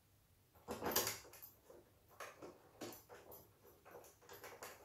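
Handling sounds: irregular light clicks and rustles as screws are turned in by hand to fasten a metal mounting bracket to the back of a monitor, the loudest rustle about a second in.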